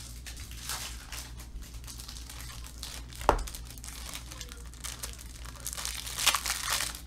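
Plastic crinkling and rustling as trading cards are handled and put into magnetic one-touch card holders. There is a sharp plastic click about three seconds in as a holder snaps or is set down, and a louder spell of crinkling near the end.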